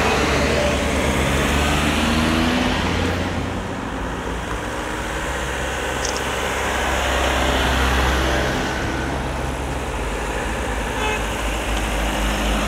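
Race convoy of team cars and motorcycles driving slowly past one after another, engines running, the sound swelling and easing as each vehicle goes by.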